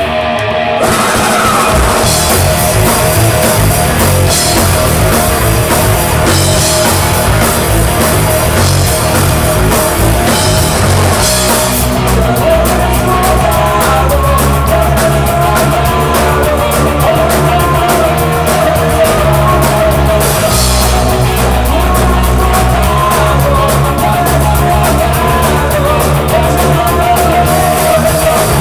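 A live rock band playing: electric guitars, bass guitar and a drum kit together. The low end grows fuller and heavier about twelve seconds in.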